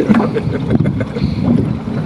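Wind buffeting the microphone, an uneven low rumble, with faint ticks and knocks from a small fishing boat on the water.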